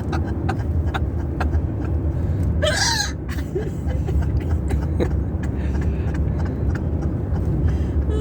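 Car cabin road noise, a steady low rumble while driving, with one short high-pitched squeaky hiccup about three seconds in.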